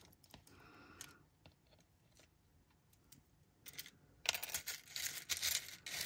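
Small sewing buttons clicking and rattling against each other and a clear plastic box as fingers stir through them, a few faint clicks at first and a busy clatter from about four seconds in.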